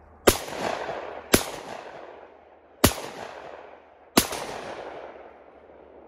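Four shotgun shots, about one to one and a half seconds apart, each followed by a rolling echo that fades over a second or more.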